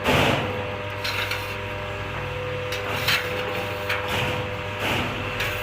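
Milk-powder extractor machine running with a steady motor hum and a held mid-pitched tone, with a few short scraping rasps over it.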